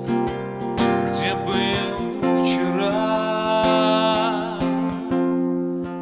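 A man singing a slow Russian bard song to his own acoustic guitar strumming, holding one long, wavering note through the middle.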